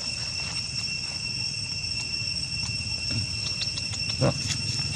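Steady, high-pitched drone of insects calling in the undergrowth, holding a constant pitch throughout, with a short voice-like call about four seconds in.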